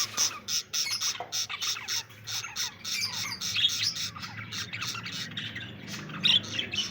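A flock of small aviary birds chirping and squawking busily, with many short overlapping calls and no pause. A faint steady low hum runs underneath.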